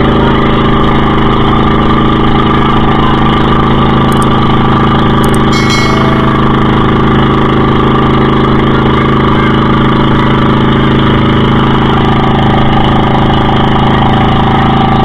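Motorized outrigger boat's engine running at a steady, unchanging speed, loud and close, while the boat tows a banana boat through the water.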